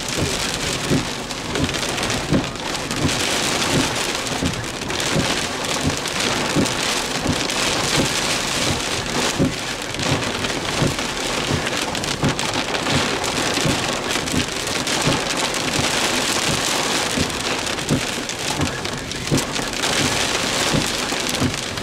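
Heavy storm rain pelting a vehicle's body and windows, a steady dense hiss with many irregular drops knocking on the roof, in the gust front of a severe thunderstorm.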